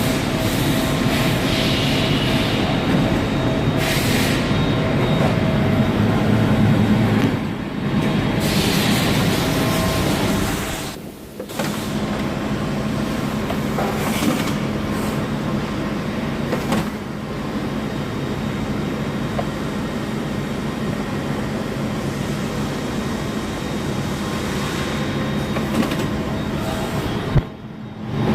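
Okuma LVT300M CNC lathe running: a steady mechanical hum with several steady tones. It drops away briefly about eleven seconds in and again near the end.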